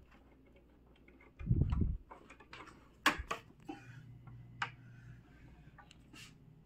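Handling noise from a phone being moved about while filming: a short low rumble about a second and a half in, then a few scattered sharp clicks and taps.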